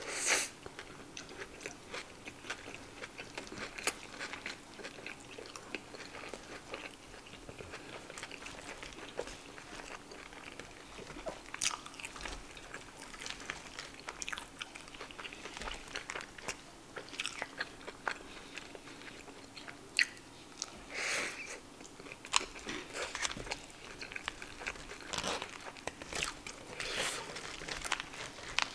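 Close-miked eating sounds: chewing and crunching of animal-style fries topped with Xtra Hot Cheetos, with wet mouth and lip smacks. The sharp crunches and clicks come irregularly, a few of them louder than the rest.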